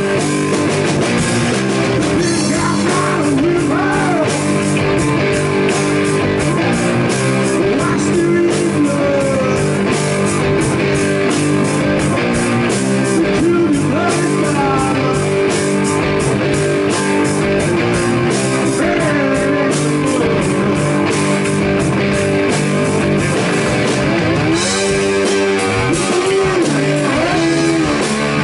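Blues rock band playing live: electric guitar, bass guitar and drums at a steady loud level, with a lead guitar line bending notes up and down over the rhythm and cymbals crashing.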